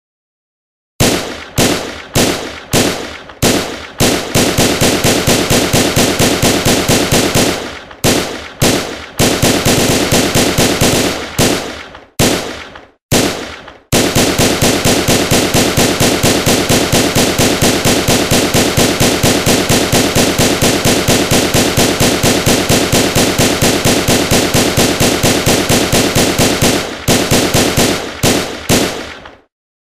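Gunshot sound effect: single shots fired a fraction of a second apart, then long bursts of rapid automatic fire at about six shots a second, broken by short pauses and a few more single shots near the end.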